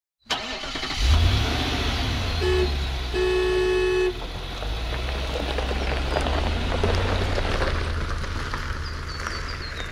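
A van's engine runs as it drives by, and a vehicle horn honks twice about two and a half seconds in: a short toot, then a longer one of about a second.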